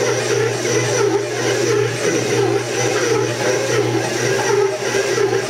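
Electric stand mixer running steadily, its dough hook kneading a ball of pizza dough in the steel bowl, with the dough already come together at the end of kneading.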